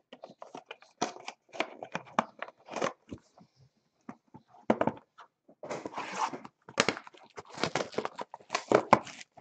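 Handling noise from cardboard card boxes knocked and slid on a table, then plastic shrink-wrap being torn and crinkled off a sealed box of trading cards, densest in the last few seconds.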